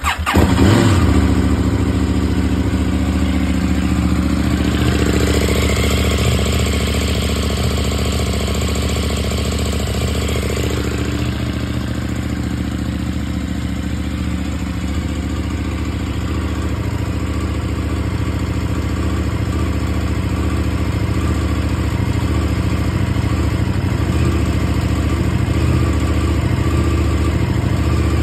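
KTM 790 motorcycle's parallel-twin engine starting up and then idling steadily.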